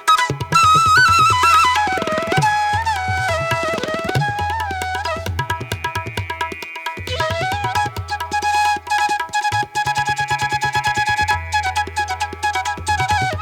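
Background music: a flute-like melody gliding over a steady tabla beat.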